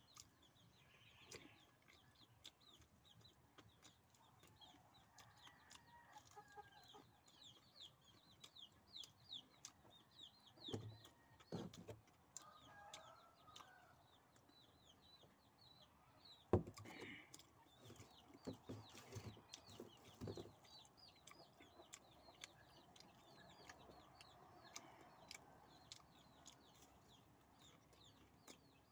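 Faint chickens clucking, with a steady run of short, high, falling peeps. A few knocks are heard, the sharpest a little past halfway.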